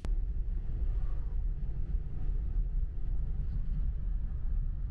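Steady low rumble of road and engine noise inside a moving bus.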